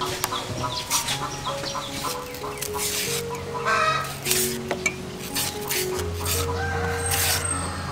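A kitchen knife shaving the peel off a young green banana in short scraping strokes, with hens clucking and soft background music.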